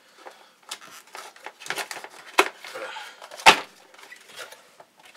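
Cardboard box being handled and opened by hand: rustling and scraping of the cardboard with scattered clicks, and two sharp knocks about two and a half and three and a half seconds in.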